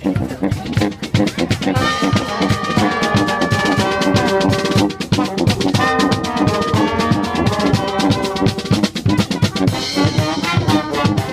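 Balkan brass band playing: a steady drum beat, with the horns coming in on a melody about two seconds in and briefly dropping out around the middle before carrying on.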